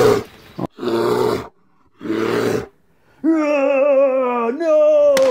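A roar sound effect under a roaring-bear logo: three short rough growling bursts, then a long wavering roar that steps up in pitch near the end.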